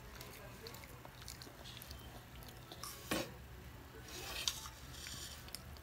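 A child eating pancake: soft chewing and small clicks of a metal fork against a plate, with one louder knock about three seconds in.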